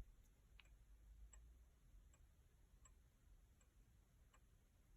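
Antique Lenzkirch Vienna regulator wall clock ticking, so quiet it can just barely be heard. It gives faint, evenly spaced ticks, about four every three seconds.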